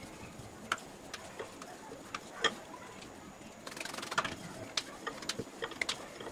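Roti dough being dusted in dry flour, patted between the hands and rolled out with a wooden rolling pin on a granite counter: scattered light clicks and taps, with a soft rustle about four seconds in.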